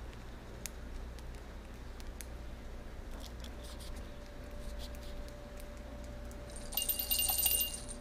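A small metal bell on a bird perch jingles briefly about a second before the end. Light scattered clicks of a budgerigar's claws and beak on the wooden branches come before it.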